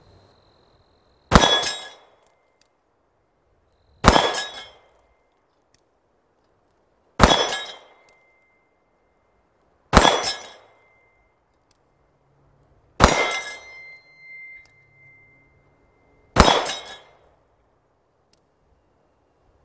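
Six single 9mm pistol shots from a Ruger MAX-9, spaced about three seconds apart. Each shot comes with a clang of the bullet striking a steel reaction target, ringing briefly. After the third and fifth hits a bright ring holds on for a second or more, which the shooter thinks marks hits on the outer steel plate rather than the A-zone paddle.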